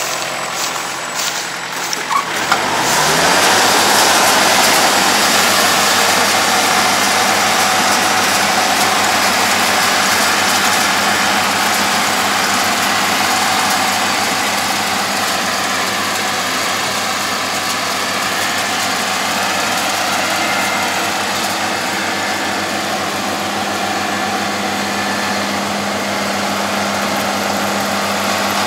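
Yanmar AE447 combine harvester's diesel engine revving up about two and a half seconds in, then running steadily under working load while the combine cuts and threshes standing grain, a dense, even machine noise.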